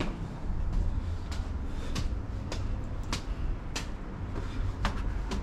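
Footsteps climbing stone stairs: regular short steps, a little under two a second, over a steady low rumble.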